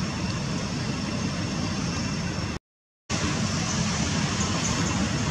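Steady outdoor background noise, a low rumble with hiss, that cuts to dead silence for about half a second a little past the middle and then resumes.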